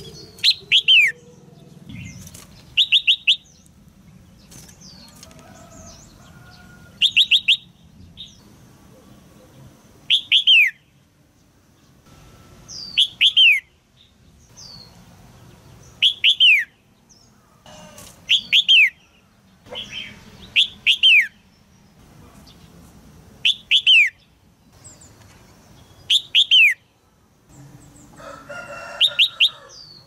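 Female red-whiskered bulbul giving sharp, chattering 'jiak' calls. Each call is a quick cluster of two to four falling notes, repeated every two to three seconds.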